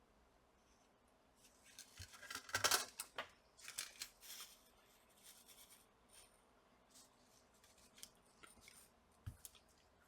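Small hand tools clicking and scraping against the small plastic and metal parts of a laptop charging port being pried apart. A quick flurry of clicks and scrapes a couple of seconds in, then a few scattered clicks.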